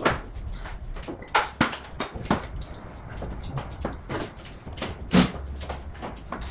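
Irregular clinks and knocks of metal hand tools and sockets being handled and set down on a metal tool cart, a few sharper knocks among them, over a low steady hum.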